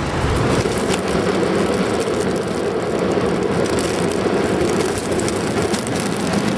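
Strong wind blowing steadily in a mountain blizzard, buffeting the microphone.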